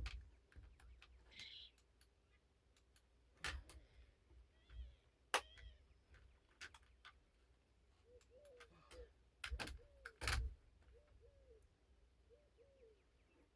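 A few sharp clicks and knocks, spaced seconds apart, from a nail gun being tried against the door header while it is not driving nails. Short, low calls of a bird repeat in the background from about two-thirds of the way in.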